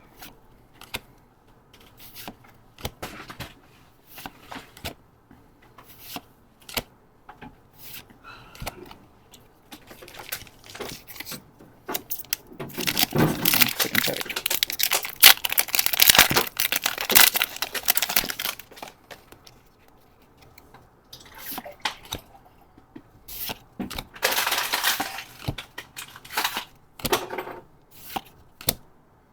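Foil booster pack wrapper being crinkled and torn open, with light clicks and flicks of trading cards being handled throughout. The longest stretch of tearing and crinkling comes about halfway through, with a shorter one near the end.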